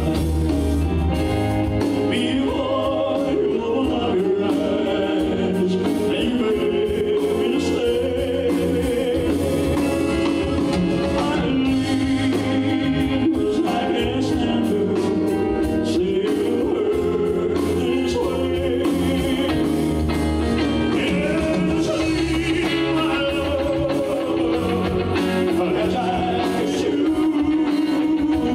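Male singer performing a slow ballad with live band accompaniment, holding long sung notes over the band.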